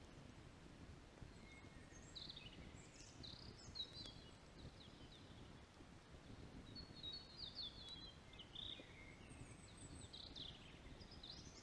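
Faint songbird song: several quick chirping phrases and trills, one after another, over a low hush of outdoor background noise.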